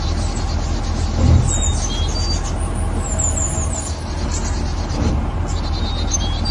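Birds chirping in short repeated trills over a steady low rumble, with a brief louder low thump about a second in.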